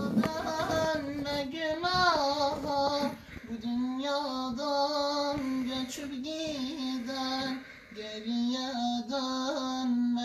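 A young man singing a Turkish Sufi hymn (ilahi) unaccompanied, holding long, drawn-out notes with wavering ornaments, with two short breaks for breath.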